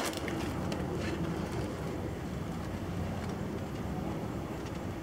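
A steady low rumble, with a few faint scratches as fingers pick at the packing tape on a cardboard box.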